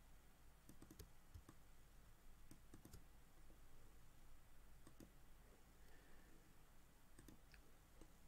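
Near silence with faint computer mouse clicks, scattered in small groups, over a low steady hum.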